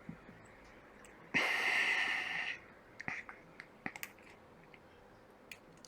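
A short rush of air lasting about a second, like a sharp breath or a puff of air, followed by a few faint light clicks.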